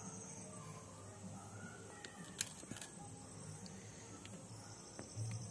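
Faint, steady high chirring of crickets, with a low hum beneath and a few light clicks.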